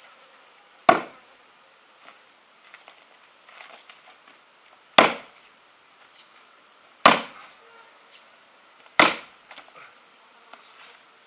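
Axe chopping wood on a chopping block: four sharp chops, a few seconds apart.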